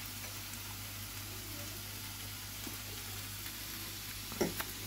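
Steady hiss with a low hum underneath: room and microphone noise. Near the end there is one short vocal sound.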